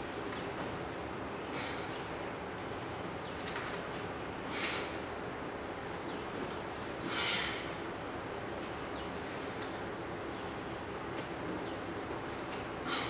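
Insects trilling steadily at one high pitch over a constant hiss, with a few short soft rushes of noise, the loudest about seven seconds in.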